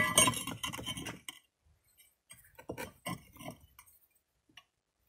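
Light clicks and scrapes of a metal speed square being set and held against a hollow clay brick, with a pencil scratching a marking line along its edge.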